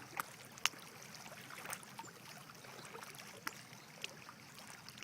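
Lake water gently lapping, with a few sharp little clicks and splashes.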